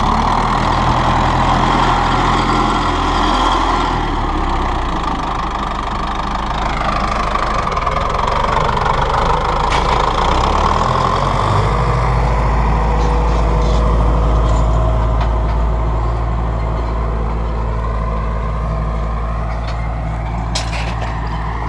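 Tractor engine running steadily while sowing rapeseed; its note shifts about twelve seconds in.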